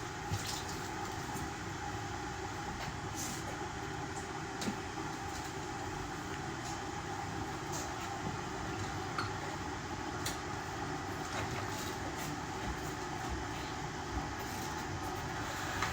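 Robot vacuum cleaner running: a steady whirring hum, with a few faint clicks now and then.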